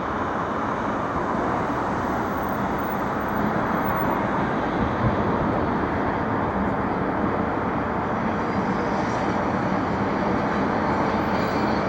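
Steady outdoor city noise of road traffic, an even rumble without distinct bangs.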